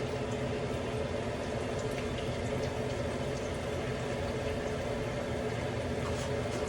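Breaded chicken cutlets deep-frying in hot oil: a steady sizzle with a few small pops.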